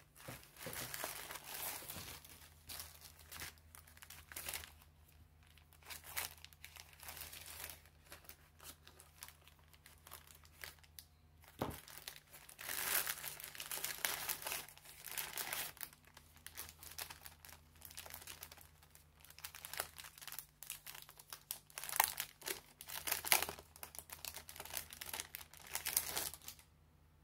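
Plastic mailer bags and a clear plastic wrapper crinkling and rustling in irregular bursts as they are handled and opened.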